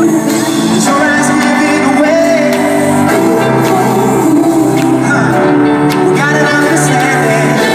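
Live pop song played by a band through an arena sound system, with a man singing into a microphone over sustained chords, heard from among the audience.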